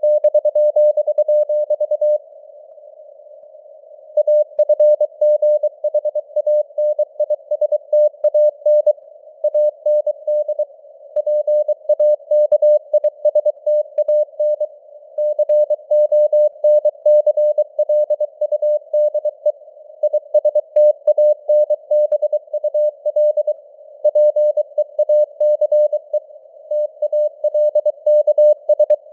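Morse code (CW) sent at 23 words per minute: a single steady tone keyed on and off in quick dots and dashes, over a narrow band of simulated radio hiss. There is a pause of about two seconds near the start.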